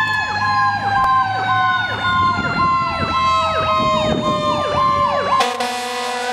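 Fire engine responding with its siren going: a fast repeating yelp over a second siren tone that slides slowly down in pitch. About five seconds in, a loud, steady air horn blast cuts in.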